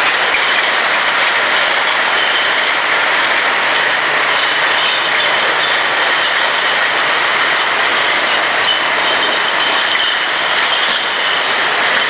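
Automatic beer bottle washing machine running: a loud, steady mechanical clatter with a hiss.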